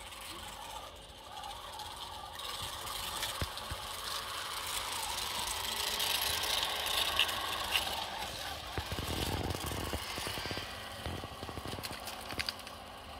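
G-scale garden-railway track-cleaning locomotive (brush car) running along the rails: its motor and rotating cleaning brush make a steady whirring hiss with rattling clicks from the wheels on the track. It grows louder as it passes close, about six to seven seconds in, then fades as it runs away.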